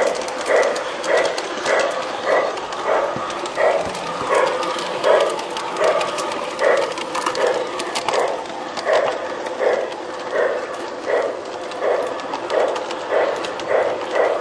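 G-scale model steam locomotive's sound unit chuffing steadily, about two chuffs a second, with light clicking from wheels on the track.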